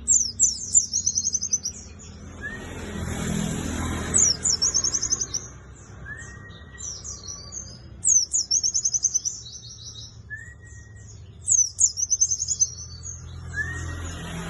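Pleci buxtoni white-eye singing: about five quick, high chattering trill phrases, each a second or so long, with short rising whistle notes between some of them. A low background rumble swells about three seconds in.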